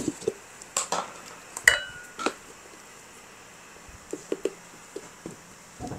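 Scattered clinks and knocks of kitchen utensils and dishes, about eight over a few seconds. One clink about two seconds in rings briefly, like a struck bowl.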